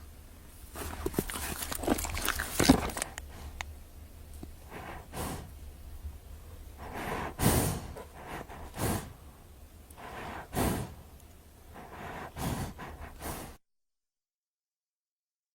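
Horse breathing hard through its nostrils: a string of short, noisy blows, about seven of them, with a low hum under them. They stop about two seconds before the end.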